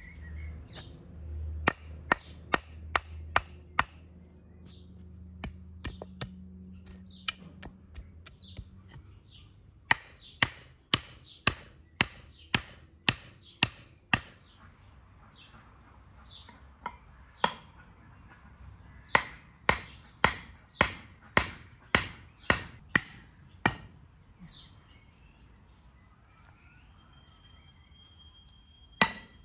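Repeated sharp chopping or hammering strikes, about two a second, in runs separated by short pauses, with birds chirping faintly.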